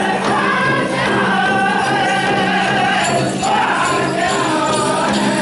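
Pow wow drum group singing an intertribal song, voices in unison over the drum, with the jingling of dancers' bells and jingles.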